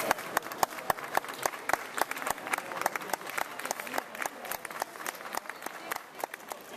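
Scattered applause from a small audience: individual hand claps, irregular and distinct, thinning toward the end.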